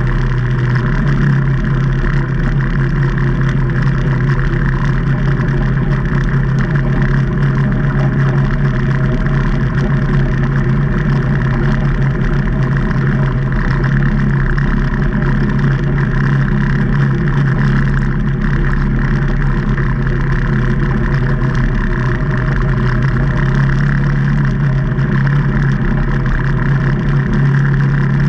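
Engine of a 2019 Can-Am Maverick Trail 800 side-by-side, a Rotax 800 V-twin, running at a steady speed on a trail: a constant, even drone with little change in pitch.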